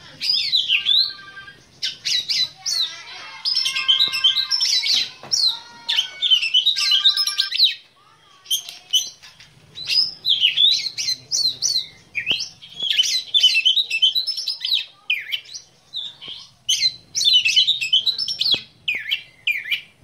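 Black-breasted oriental magpie-robin (kacer dada hitam) singing a rapid, varied song of whistles and chirps in long bursts, with short pauses between them.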